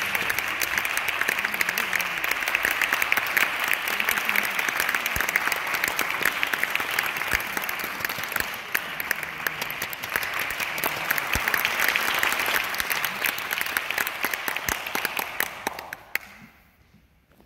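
Audience applauding steadily, a dense patter of many hands clapping, dying away a little over a second before the end.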